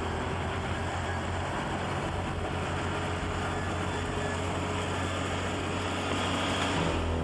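Bulldozer's diesel engine running steadily under load, a low heavy rumble with a broad mechanical clatter, growing a little louder near the end.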